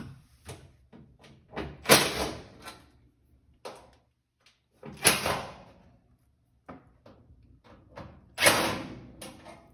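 Three loud short bursts of noise, about three seconds apart, each fading over about a second, with light clicks and knocks between: a cordless drill backing screws out of the steel back panel of an electric range.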